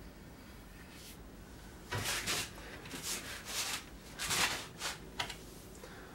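Pencil scratching across a large sheet of drawing paper in a series of short strokes, starting about two seconds in.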